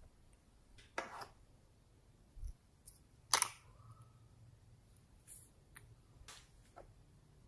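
Slime being handled, making a few scattered short clicks and pops; the loudest comes about three and a half seconds in.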